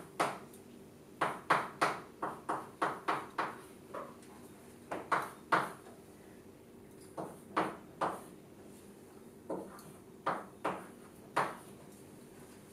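Chalk tapping and scraping on a blackboard as a formula is written: short, sharp clicks in irregular strokes, some in quick runs of several.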